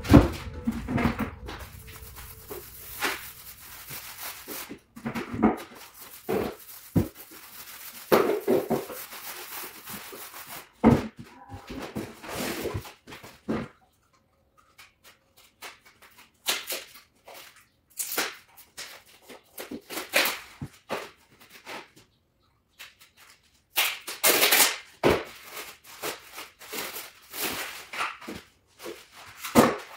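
Rustling and crackling of a paper wallpaper roll being handled, in short irregular bursts with a few knocks and quiet gaps between them.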